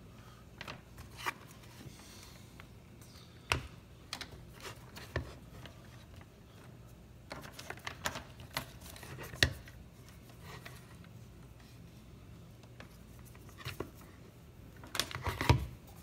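Handling noise: scattered clicks and taps as power cords, a plastic wire connector and a black transformer box are moved about, with a quick run of clicks near the end. A low steady hum runs underneath.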